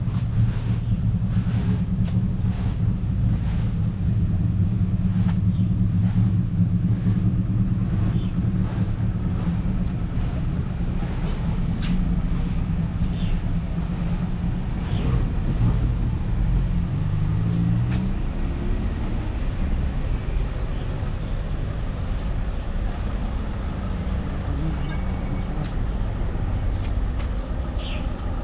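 A motor vehicle's engine running steadily nearby, its pitch rising as it pulls away about two-thirds of the way through, then fading. Footsteps on the pavement are heard at a walking pace in the first half.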